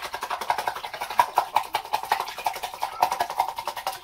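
Fast, even rattling at about a dozen strokes a second as a toothbrush is scrubbed clean at the bathroom sink after use; it stops abruptly at the end.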